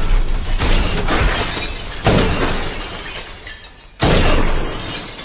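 Movie soundtrack of pistol shots breaking glass panels: loud shots with shattering glass about a second apart, a short lull, then another shot and crash about four seconds in.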